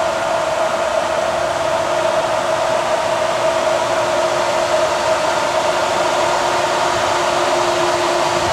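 Steady mechanical whir: an even hiss with a constant mid-pitched hum, joined by a second, lower hum near the end.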